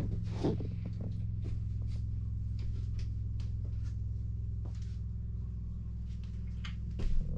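A steady low hum, with light clicks and knocks scattered over it and a slightly louder knock near the end.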